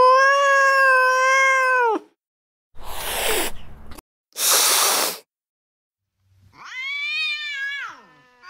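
Recorded angry cat sounds played one after another: a long, drawn-out yowl held at a steady pitch, then two short hisses, then a shorter wavering yowl that rises and falls.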